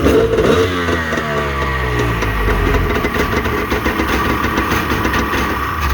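Jet ski engine, fitted with a cam and a water box muffler, running. About a second in its revs fall away, and it then settles into a steady, lumpy idle. It sounds pretty good.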